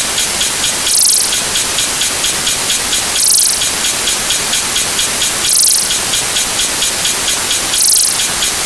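A dense, loud hiss like heavy rain or static. A brighter hissing swell comes about every two seconds, over faint rapid ticking.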